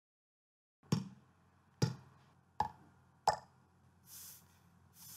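Rubber chicken struck four times, giving short, sharp knocks about a second apart, each dying away quickly, over a low hum. Two soft airy hisses follow near the end.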